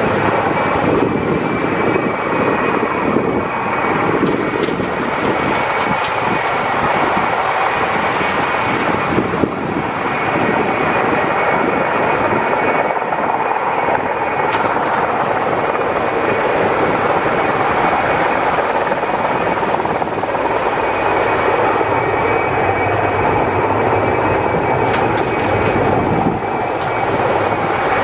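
Erickson S-64 Air-Crane heavy-lift helicopter running steadily: a constant, loud rotor and engine noise with a thin steady high tone over it.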